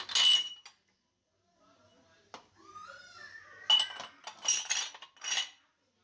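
Glassware clinking against other glasses and the dishwasher's rack as it is loaded, in two bursts: sharp clinks with a short glassy ring at the start, and a run of several more from about three and a half seconds in.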